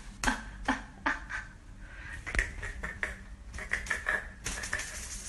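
Light clicking and tapping of a cat wand toy being waved and knocked about: a few sharp taps in the first second, then a quicker run of rattly clicks near the end.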